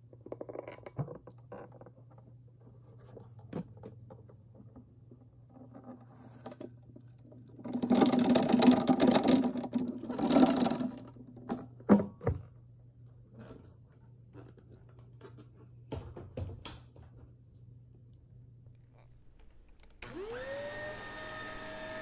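Crackly rustling and crunching of dry debris for about three seconds in the middle, with scattered clicks before and after. Near the end a Shark upright vacuum cleaner switches on: its motor whine rises quickly, then runs steadily.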